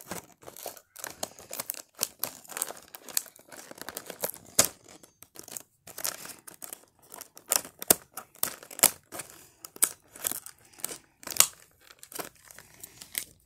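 Plastic and paper packaging of a Cry Babies doll capsule being crinkled and torn open: a busy, irregular run of crackles and sharp snaps.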